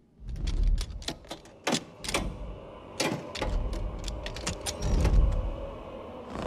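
Metal lever door handle clicking and rattling as a raptor's claws work it down, ending with the latch giving and the door starting to open, over a deep rumble that swells and fades.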